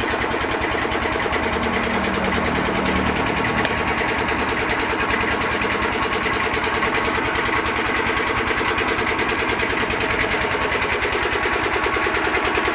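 An engine idling steadily, with a fast even pulse.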